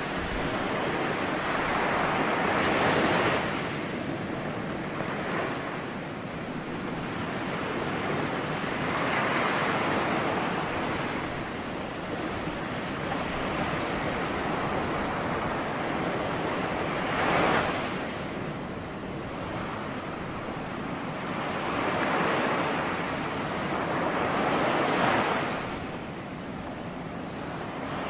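Ocean waves breaking and washing on the shore, surging and receding every few seconds, with one sharper crash about two-thirds of the way through.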